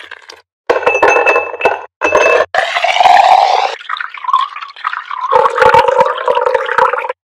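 Drink-making sounds in short cut-together bits: a steel muddler clicking and ringing against a tall glass over pomegranate seeds, then liquid splashing as it is poured over ice into the glass.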